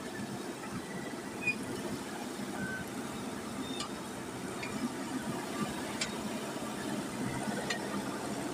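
JCB 3DX backhoe loader's diesel engine running steadily while the backhoe arm digs, with a few sharp clicks scattered over it.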